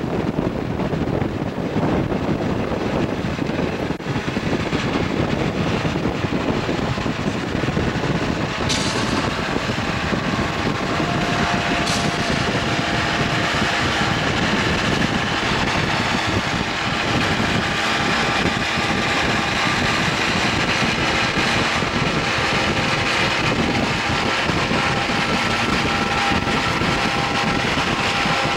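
Santa Fe diesel locomotives running downgrade in dynamic braking, heard from a car pacing alongside: a steady roar from the units and the moving car, with a whine from the brake grid fans and traction motors building about ten seconds in and holding as they wind up toward full dynamic.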